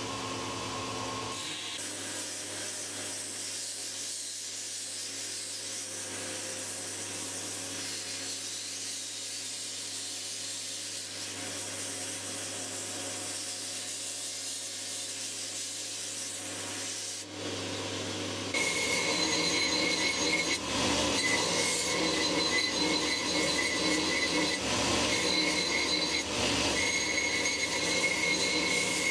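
Belt grinder running with a steel axe drift of H13-type tool steel pressed against the abrasive belt, a steady grinding hiss. About two-thirds of the way through it turns into a louder grind with a high, steady squeal.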